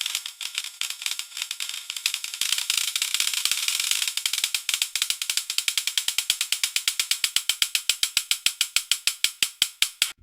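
Biohazard bin lid mechanism giving a long run of rapid ratchet-like clicks as it closes. The clicks grow more distinct and even over the second half, about nine a second, then stop abruptly at the end.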